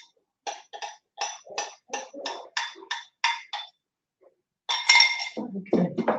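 A metal utensil clinking and scraping against a metal cooking bowl in a quick, even run of about ten short strokes, each ringing at the same pitch. A longer, louder scrape comes near the end.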